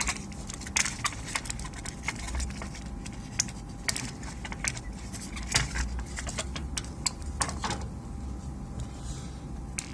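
Irregular light clicks and taps of small tools and parts being handled on a workbench, over a low steady hum.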